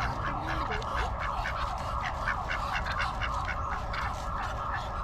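Ducks calling in a rapid, evenly repeated series of about four calls a second, a sign of agitated birds that seem mad and want people to move away.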